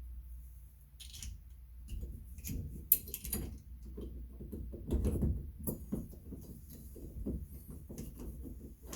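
Small clicks and scraping of parts being handled as a screw is turned in by hand with a screwdriver into a shower valve's stem extension, with one sharp click about three seconds in.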